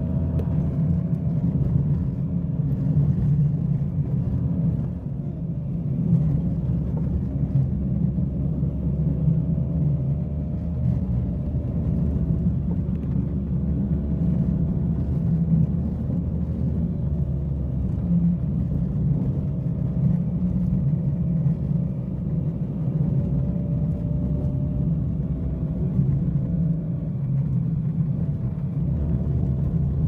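Car engine running steadily with a low rumble of tyres on a rough dirt road, heard from inside the cabin, the engine note drifting gently up and down.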